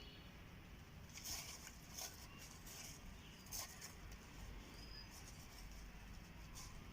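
Faint rustling with a few short, crisp crackles, about one, two and three and a half seconds in, as a cat handles the myna bird it has caught; a brief high peep near five seconds.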